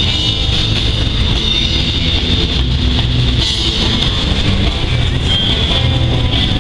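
Live rock band with guitar and drums playing from an outdoor stage, mixed with the steady rolling noise of a passing double-stack intermodal freight train.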